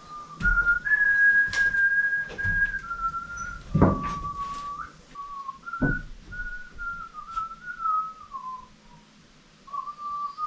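A person whistling a tune, one clear note at a time. Two sharp knocks come about four and six seconds in.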